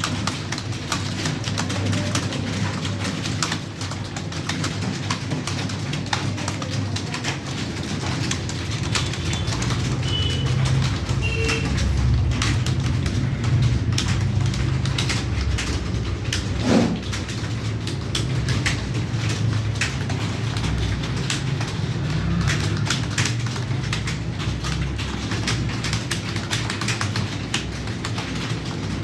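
Computer keyboard keys clicking in a quick, uneven stream of keystrokes as someone types without pause.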